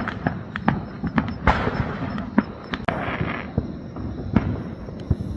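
Many fireworks and firecrackers going off in the distance. Sharp bangs and pops come irregularly, several a second, over a continuous rumbling crackle.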